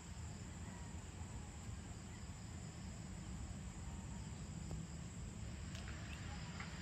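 Faint evening insect chorus: a steady high-pitched trill over a low rumble.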